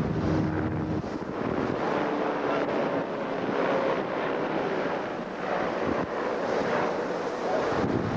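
Wind buffeting a camcorder microphone aboard a boat on open water, in gusts over a steady rushing noise.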